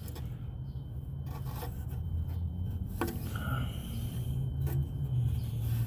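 Rubbing and scraping of hands and a tool working in tight quarters as the crankshaft position sensor's retaining screw is refitted, with a few faint clicks over a steady low rumble.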